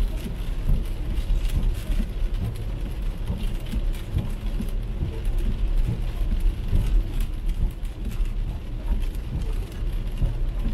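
Heavy rain hitting the windshield and body of an MG ZS EV electric car as it drives on a wet road, over tyre noise and a steady low road rumble.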